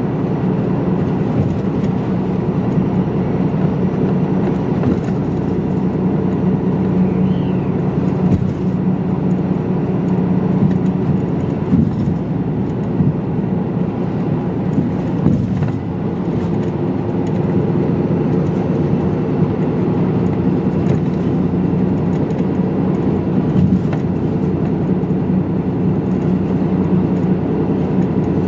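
Medium-size route bus heard from inside the cabin while driving: a steady engine drone with road noise and a few small knocks.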